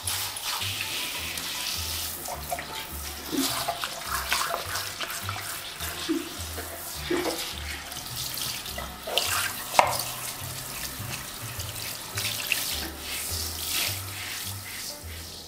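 Water spraying from a handheld shower head onto a wet cat on a tiled floor, a steady hiss with irregular splashes and spatters, over soft background music.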